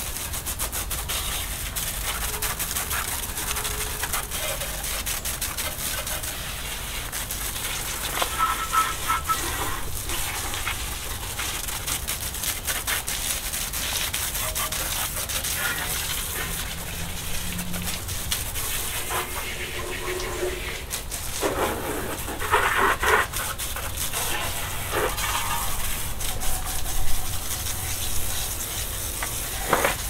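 Motorcycle being washed: a steady crackling hiss of water spray and suds on the bike, with rubbing from scrubbing and a few short louder bursts, about 8 seconds in and again a little past 20 seconds.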